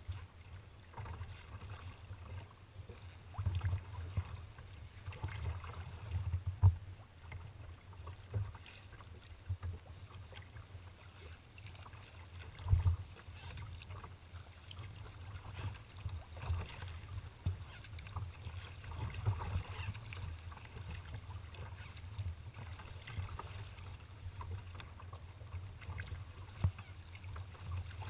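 Choppy water slapping and splashing against a kayak's hull as it is paddled, with a few louder slaps. Wind rumbles on the microphone throughout.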